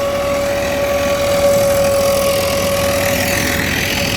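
Rock drill rig drilling into rock, its engine running steadily with a steady high whine over a low rumble.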